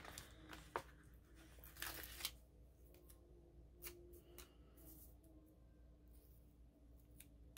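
Faint paper and sticker handling: light rustles and a few soft clicks as a strip sticker is peeled from its sheet and pressed onto a planner page.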